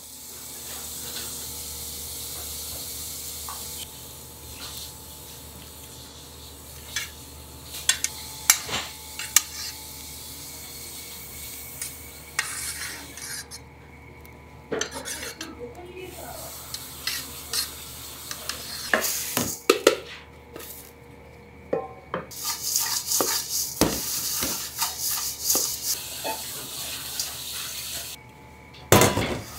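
Pastry kitchen work with metal utensils and stainless steel: a palette knife scraping and tapping as chocolate ganache is spread in a stainless steel cake frame, and sharp clinks and scraping against stainless steel mixing bowls, over a steady background hum.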